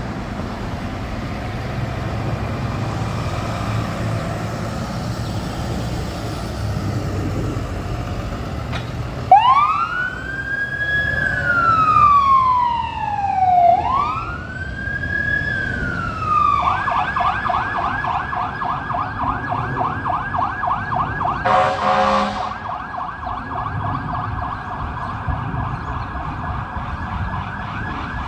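Ambulance engine running with a low rumble for the first several seconds, then its electronic siren starts: two slow rising-and-falling wails, then a switch to a fast yelp that carries on. About two-thirds of the way through, a short horn blast cuts across the yelp.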